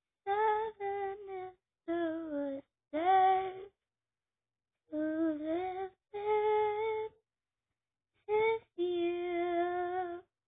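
A young girl singing unaccompanied, in short phrases with silent pauses between them, ending on a long held note.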